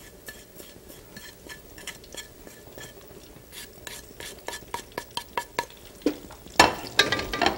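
Wooden spoon tapping and scraping against a plate and pot, a quick run of small clicks with a few louder knocks near the end, as spices (ginger, cumin, chilies, asafoetida) go into hot ghee. A faint sizzle of the spices frying in the ghee lies underneath.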